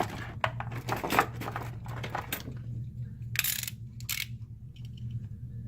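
A thin adhesive strip being cut and handled: a run of small crackling clicks, then two short scratchy rasps about three and a half and four seconds in. A steady low hum sits underneath.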